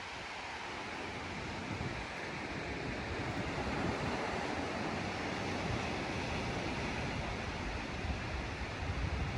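Sea surf washing onto a beach, a steady rush of waves that swells gradually over the first few seconds, with some wind rumbling on the microphone near the end.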